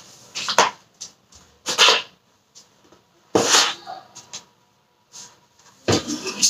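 Soft grass broom sweeping a hard floor: about four brushing strokes, each under half a second, a second or two apart, with lighter scrapes between.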